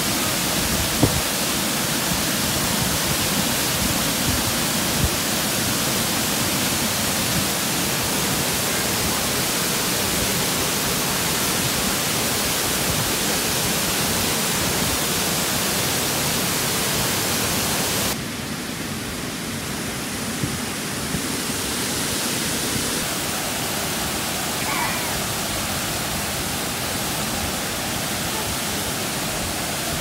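Aasleagh Falls, a wide waterfall pouring over a rock ledge into a pool, rushing steadily. The rush becomes a little softer and duller about eighteen seconds in.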